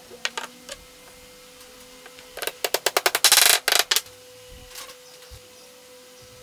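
Hammer tapping a wooden dowel peg home through a half-lap joint: a quick run of about a dozen sharp taps, starting about two seconds in and lasting under two seconds. It comes after a few light knocks of wood on wood near the start.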